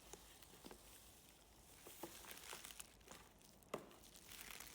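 Near silence with faint crinkling of plastic packaging and a few light clicks, one sharper tick about three-quarters of the way through, as the individually bagged pump-service parts are handled.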